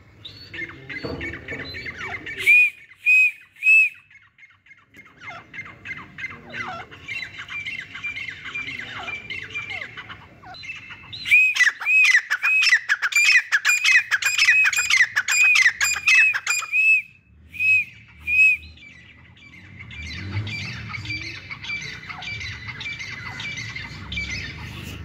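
Grey francolin calling: loud, sharp, high notes repeated in series. There are three a few seconds in, then a fast run of a dozen or so in the middle and two more after it, with softer chattering notes between the runs.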